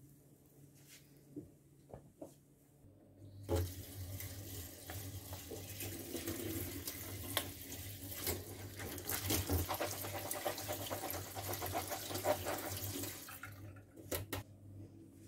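Hot water from a pot of boiled potato sticks poured through a plastic strainer into a stainless steel sink, splashing steadily for about ten seconds before it stops. A few sharp clanks follow near the end as the strainer is set down.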